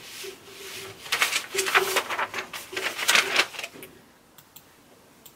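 Soft humming of a single steady note in short broken pieces, with paper sheets rustling through the middle of it.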